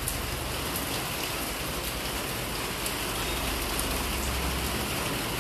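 Heavy rain falling steadily onto wet brick paving, with a few sharper drips.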